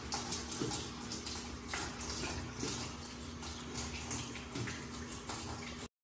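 Water pouring into the drum of a Queen HQTW110 top-loading washing machine as it fills through its inlet, flowing well now that its clogged inlet filters have been cleaned. A steady low hum runs under the rush of water, and the sound cuts off suddenly just before the end.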